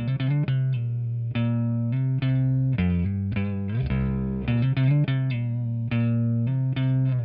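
Fender Jazzmaster electric guitar on its neck pickup, tuned to C standard, played through an amp and a preamp pedal: a riff of picked low notes and chords with a mild, fairly clean drive.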